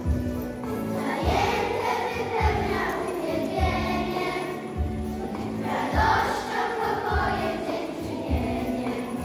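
Several voices singing a Christmas song together over an instrumental accompaniment, with a steady beat of about one stroke a second.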